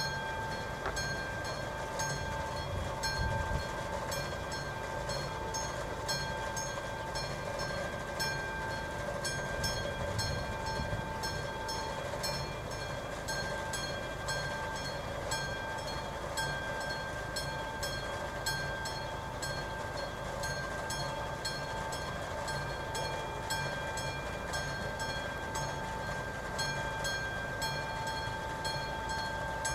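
Classic electric bell of an AŽD 71 level-crossing signal ringing continuously as a steady ringing tone while the crossing is closed.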